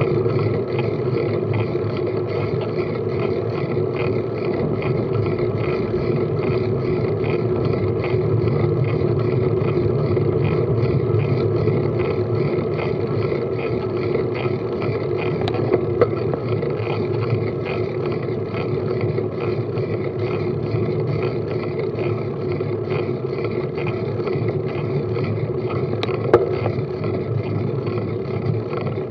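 Steady road and wind noise of a bicycle riding slowly on tarmac, picked up by a handlebar-mounted Garmin Virb action camera. Two sharp clicks, one about halfway and one near the end.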